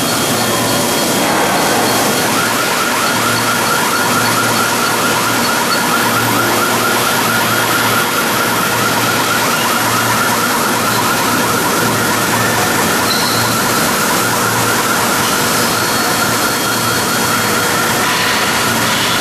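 CNC drilling machine's spindle driving a twist drill through steel plate: a loud, steady cutting noise with a high whine that grows stronger about two seconds in, over a low hum that pulses on and off every second or so.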